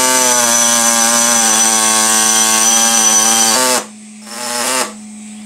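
Handheld pneumatic reciprocating air saw running and cutting through a holding tab on a machined metal plate, a steady buzz with air hiss. It stops abruptly after about three and a half seconds, then runs again in a short burst just before the end.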